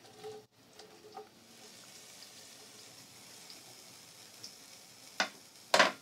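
Chopped onions sizzling in hot ghee in a non-stick pan: a faint steady hiss with a few small pops. Near the end come two sharp knocks about half a second apart, the second the loudest.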